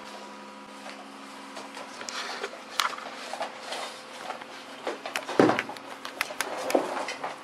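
Husky puppies scuffling over a toy on a hard floor: scattered scratches and patters of paws, with one loud thump a little past halfway.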